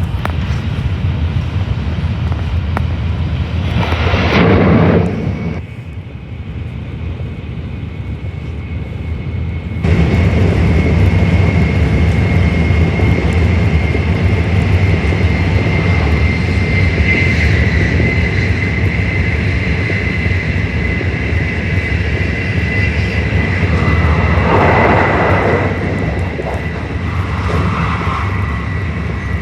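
Tokaido Shinkansen train running, heard from inside the passenger car: a steady low rumble with a thin high whine. It drops for a few seconds, jumps back suddenly about ten seconds in, and has two brief louder rushes, one about four seconds in and one near the end.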